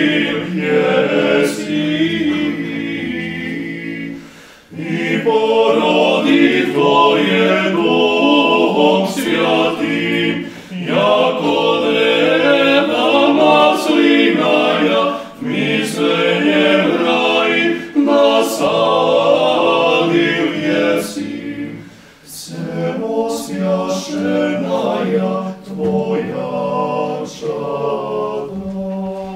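Small male vocal ensemble singing a cappella, several voices together in a series of phrases with short breaks between them.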